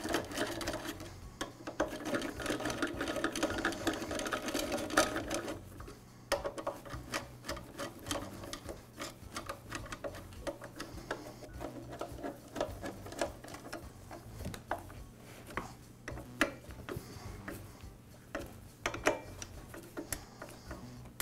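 Screwdriver turning the steel screws that hold a backpack blower's muffler: quick runs of small metallic clicks with some scraping, busiest in the first five seconds, then sparser clicks.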